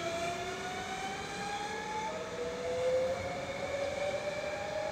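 Double-deck TER electric multiple unit accelerating away, its traction motors whining in several tones that climb steadily in pitch, with the whine jumping to a new pattern about two seconds in.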